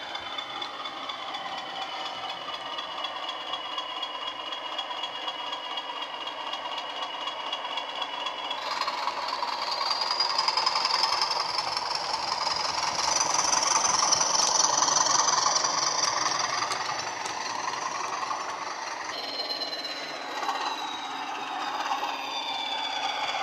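Bachmann Class 20 model locomotive's SWD digital sound decoder playing a Class 20 diesel engine sound through a megabass speaker as the model runs. The engine note steps up in pitch with a high whine about a third of the way in, is loudest in the middle, and drops back down near the end.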